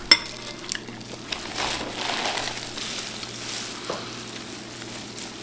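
Plastic bag and disposable plastic gloves crinkling, with wet squishing of sauce-coated shrimp being handled and peeled. Scattered small clicks, a sharp one right at the start, over a low steady hum.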